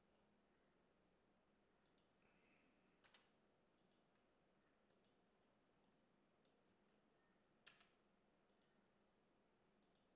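Near silence: faint room hiss with a handful of very faint, scattered computer mouse clicks.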